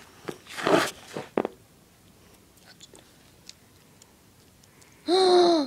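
Rustling handling noises with a sharp click, then a few faint ticks over quiet background. Near the end, a child's voice gives one short, loud, held moan.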